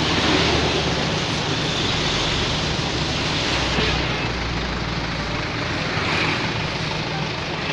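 Roadside traffic noise: passing vehicles give a steady rumble and hiss, with a heavier low rumble swelling about halfway through. No horn is sounding.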